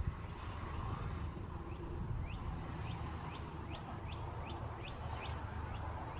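A songbird sings a run of about ten quick, evenly spaced downslurred notes, starting about two seconds in, over a steady low rumble.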